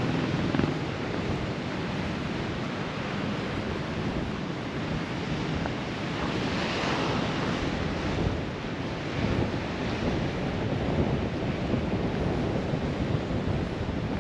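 Sea waves washing onto a beach, a steady surf noise that swells briefly about halfway through, with wind noise on the microphone.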